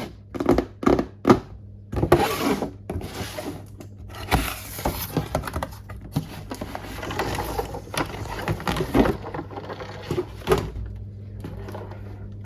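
Toy vehicle being unboxed by hand: packaging rustling and crinkling, broken by a rapid series of sharp clicks and knocks of plastic parts.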